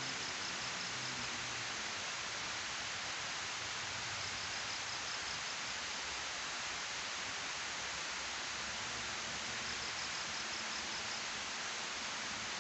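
Water pouring down a concrete weir spillway into the pool below: a steady rushing hiss. A faint, high, rapidly pulsed chirp comes twice, about four seconds in and again near ten seconds.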